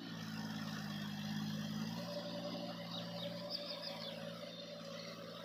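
John Deere 5050D tractor's three-cylinder diesel engine running steadily while working a rotavator, its note dropping slightly about two seconds in.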